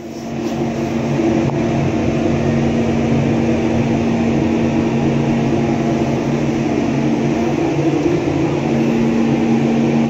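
Passenger elevator travelling: a loud, steady mechanical hum with a low drone, swelling over the first second and then holding level.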